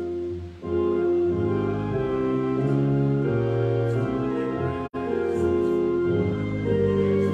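A hymn played on a keyboard instrument in held chords that change every second or so. The sound cuts out for an instant about five seconds in.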